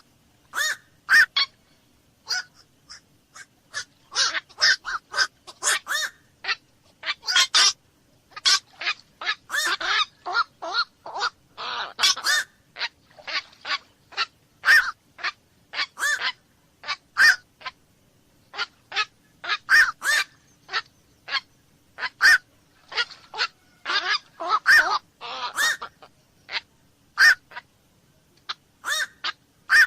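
Black-crowned night herons giving many short, harsh single-note 'kwok' calls, at times several in quick succession or overlapping.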